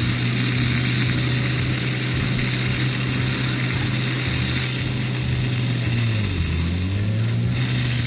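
Portable fire pump engine running steadily under load while hoses spray, its pitch sagging briefly about six seconds in and picking back up. A steady hiss runs over it.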